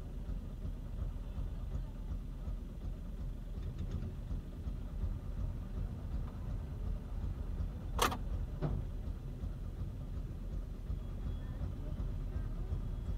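Steady low rumble of a car idling, heard from inside its cabin. About two-thirds of the way through there is one sharp click, followed shortly by a fainter one.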